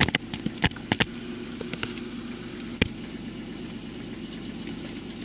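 Car engine idling steadily, heard from inside the car. A quick run of sharp clicks comes in the first second, and a single click near three seconds in.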